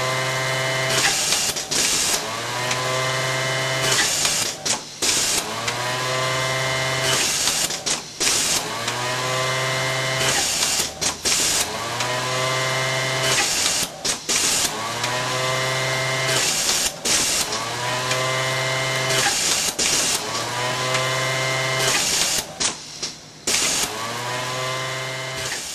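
Automatic sleeve-closing sewing workstation running repeated sew cycles, one every three seconds or so. In each cycle the DC sewing motor whines up to speed and sews steadily for about a second, then stops with clicks and a short hiss before the next piece starts.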